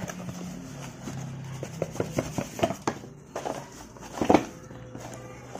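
Scattered light clicks and knocks of metal car parts being handled, with one louder knock about four seconds in, over a faint steady hum.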